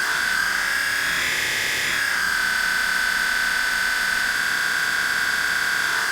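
The 'Four screech' sound effect: a harsh, high-pitched electronic screech held on one steady pitch over a hissy haze. The pitch briefly lifts at about a second in, then settles back.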